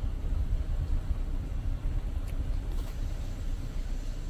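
Kia Soul driving, its engine and road noise heard from inside the cabin as a steady low rumble.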